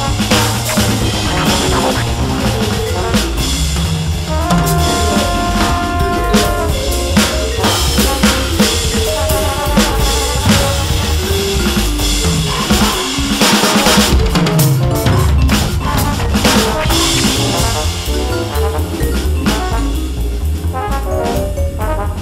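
Jazz swing four-beat drum groove played on a Roland V-Drums electronic kit, heard through its sound module, over a sequenced backing track with a bass line. Some held pitched notes come in for a couple of seconds around a quarter of the way in.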